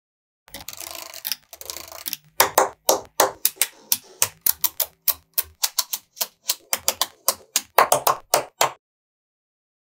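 Small magnetic balls snapping into place on a build of magnetic balls: a short rattle, then a long run of sharp clicks, about three or four a second, as each cluster is pressed on, stopping a little before the end.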